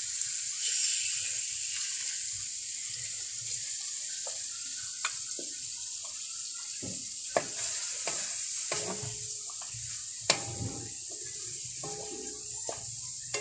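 Chicken cubes frying in oil in a pan: a steady sizzle, with scattered clicks and scrapes of a spoon or spatula stirring against the pan.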